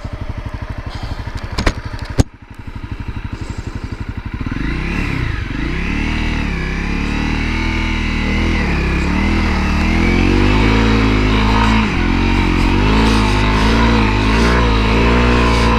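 Honda CRF250L's single-cylinder four-stroke engine ticking over at low revs, with two sharp clicks about two seconds in, then from about four seconds in revving up and down again and again as it pulls in first gear.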